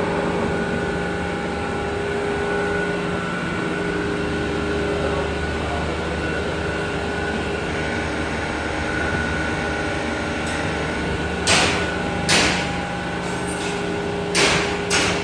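Wood sawdust machine running with a steady mechanical hum from its motor and cutter. About three quarters of the way in, several short, loud, harsh bursts break in, which sound like wood being ground into sawdust.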